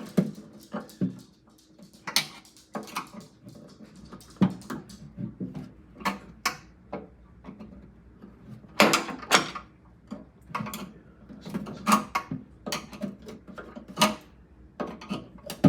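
Plastic refrigerator crisper drawer front being pried and worked off its drawer: irregular sharp clicks, knocks and scrapes of plastic, loudest about nine seconds in and again a few seconds before the end.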